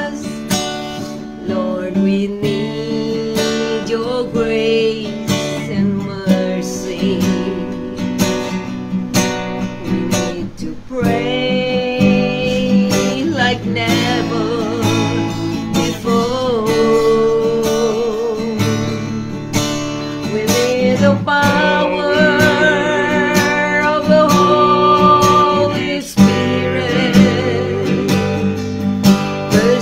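A woman singing a worship song, holding long wavering notes, while strumming chords on an acoustic guitar.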